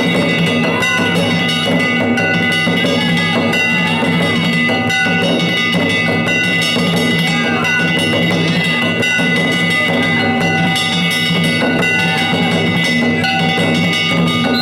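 Danjiri festival music: a taiko drum and small hand gongs (kane) struck continuously, the gongs' bright ringing tones held over the drumming.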